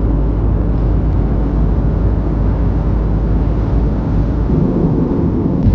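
Steady engine and airflow noise inside an airliner's cabin in flight: an even, low rumble with no breaks.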